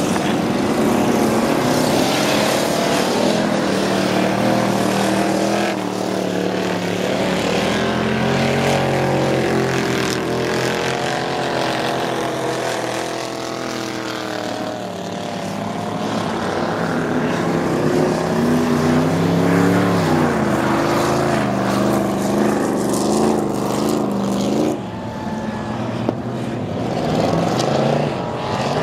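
Engines of several ice-racing cars revving up and falling back over and over as they race around the ice track, more than one engine heard at once. Near the end one engine revs up sharply.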